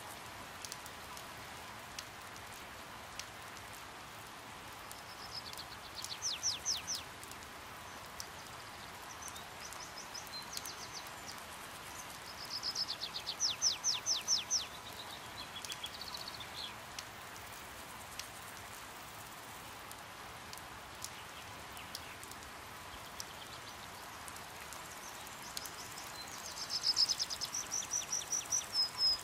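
Steady rain patter, broken three times by short runs of rapid, high chipping notes from hummingbirds at a feeder, about five or six notes a second; the last run, near the end, is the loudest.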